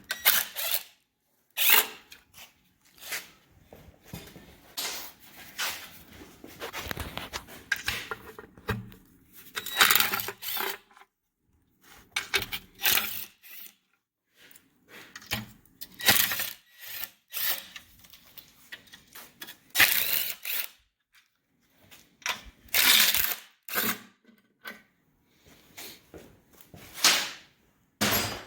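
A power tool running in short bursts, about a dozen over the stretch with pauses between them, as bolts are spun out of the top end of a Mopar 360 Magnum V8 during teardown.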